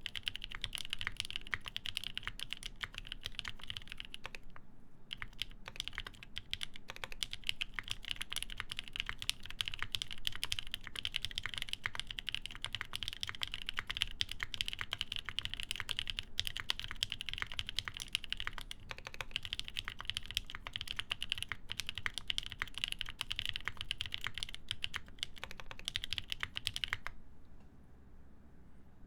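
Continuous fast typing on an Ion Jubi mechanical keyboard, mounted plateless, with lubed NK Nolives linear switches and GMK Dolch keycaps: a dense run of key clacks. There is a brief pause about five seconds in, and the typing stops shortly before the end.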